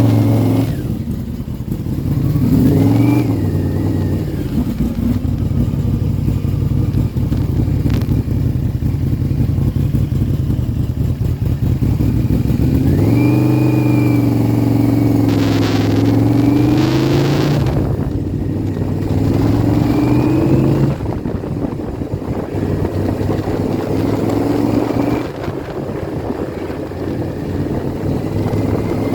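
Yamaha VMAX 1200's V4 engine running, its pitch rising and falling several times as it is revved up and eased off, with the longest swell about halfway through.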